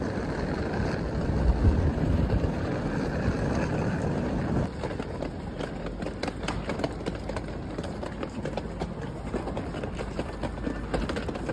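Hard-shell suitcase wheels rumbling and rattling over stone paving slabs as the case is pulled along at a run. A heavier low rumble fills the first four or five seconds; after that come many quick clicks as the wheels cross the joints between the slabs.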